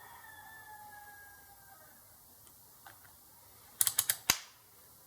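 Five or six sharp clicks in quick succession about four seconds in, from small hand tools or wire being handled at the workbench while a ground wire is prepared for soldering.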